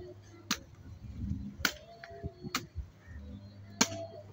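Metal-bladed hand hoe striking into garden soil: four sharp chops about a second apart, the last the loudest.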